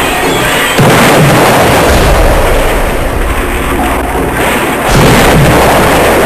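Explosion sound effects for a spaceship crash: two loud blasts, about a second in and about five seconds in, each followed by a long low rumble as it dies away.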